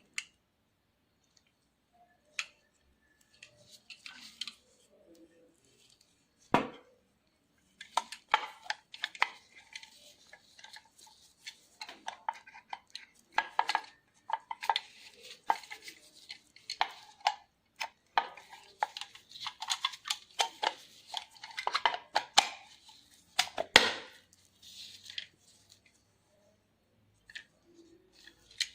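Antique camera being handled: irregular mechanical clicks, rattles and short scrapes of its metal parts, with one sharper knock early on and a long stretch of dense clicking and clattering in the middle.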